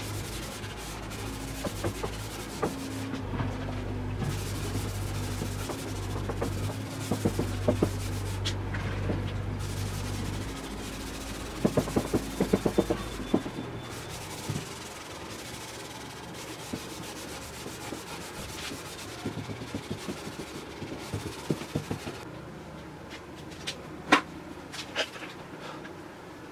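A cloth rag rubbing a dark stain into a wooden tabletop, with scattered small taps and a cluster of them about halfway through. A steady low hum in the background stops a little before the middle.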